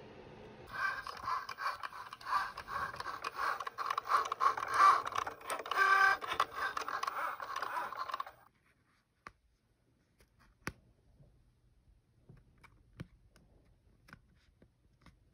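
Cricut Joy cutting machine running for about seven and a half seconds, its motors whirring and ticking as the blade carriage moves and the mat feeds, then stopping suddenly. After that, faint scattered clicks and scratches of a hooked weeding tool picking cut vinyl off its backing sheet.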